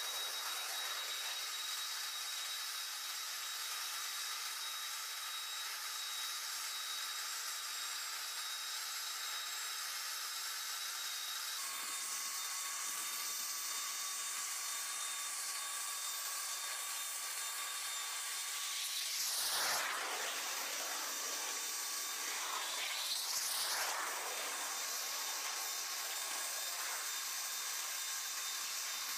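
Steady high whine over a hiss from turbine machinery running at a parked C-5M Super Galaxy, with two louder rushing swells about two-thirds of the way through.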